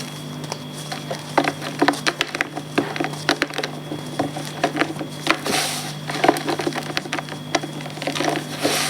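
Reformed gym chalk being crumbled: irregular crisp crunches and snaps as the pressed chalk breaks apart.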